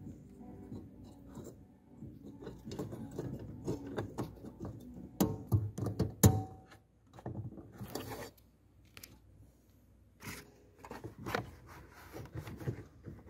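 Hands working an H7 low-beam bulb into the back of the headlight: scattered plastic clicks, knocks and scrapes, the loudest a sharp click about six seconds in. Music plays faintly underneath.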